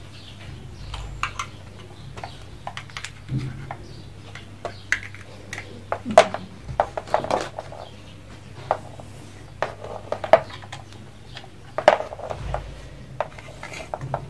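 Irregular light clicks and clatter of cables, plugs and the small plastic mini PC being handled, over a steady low hum.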